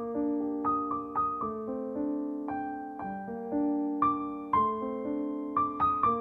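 Background piano music: a gentle melody of single notes struck roughly every half second over held chords, each note fading after it is struck.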